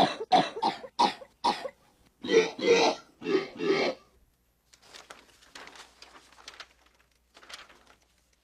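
A quick run of loud coughs, sampled and played from a keyboard to fake being sick. They stop about four seconds in, leaving only faint scattered clicks and rustling.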